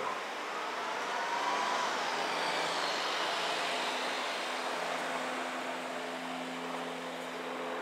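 Engine noise: a steady hiss with a slowly falling whine over the first few seconds, then a steady engine drone setting in about four seconds in.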